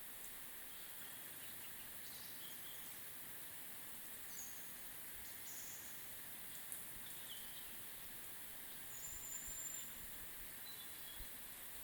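Faint early-morning forest ambience: a steady high hiss with scattered short bird chirps and calls, and one longer thin high call about nine seconds in.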